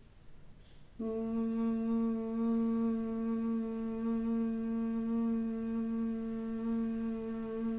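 A woman humming Bhramari, the bee-breath pranayama: a steady, even 'mmm' held at one pitch on a long exhale. It starts suddenly about a second in.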